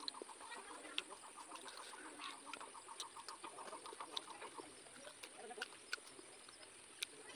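Faint animal calls: a fast, even run of short notes, about eight a second, that stops about four and a half seconds in, with a few soft clicks of chewing.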